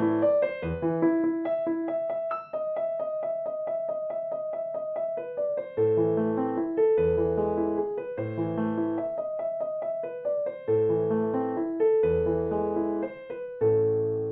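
Background piano music: a gentle melody of quick repeated notes over low chords.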